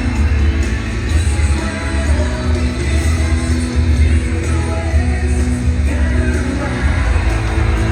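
Loud pop music with singing over a heavy bass beat.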